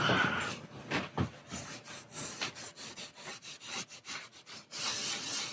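A rag rubbing back and forth over a wooden tabletop in quick strokes, about four a second, wiping natural stain into the marquetry. Near the end the strokes give way to a steady hiss.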